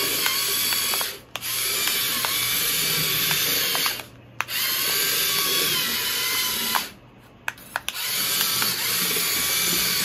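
Homemade remote-control model tractor's small electric drive motor and torque-geared gearbox whining as it drives, with light gear ticking. It runs in spurts, cutting out briefly about a second in, again around four seconds, and for about a second near seven seconds, then starting again.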